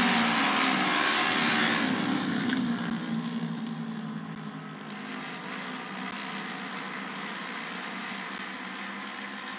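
Several auto-race motorcycles running their engines on their trial laps. The sound is loud for the first two seconds and then fades as the bikes pull away.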